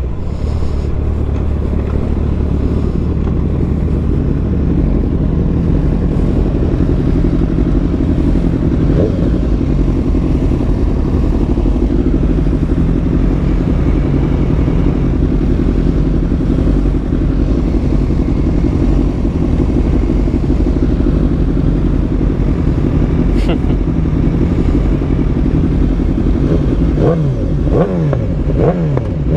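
A group of inline-four sportbike engines idling together at a stop, a steady hum. Near the end they rev up in quick rising and falling sweeps as the bikes pull away.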